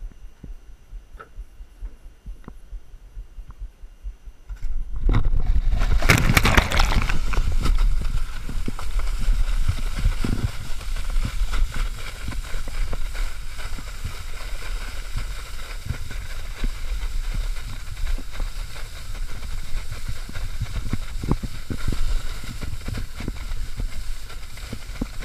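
Water skis towed by a ski-park cable. About five seconds in there is a sudden loud rush of spray and wind as the skier is pulled off the start dock onto the water. It settles into steady water rushing and wind noise on the camera, with scattered short slaps of the skis over the chop.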